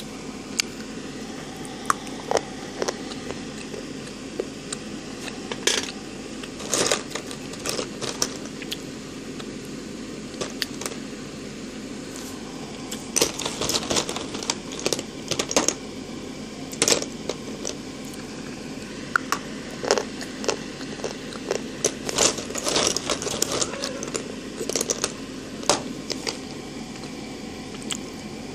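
Slate pencil sticks clicking and clattering against one another as a hand rummages through them in a plastic tub, in irregular clusters of sharp clicks, over a low steady hum.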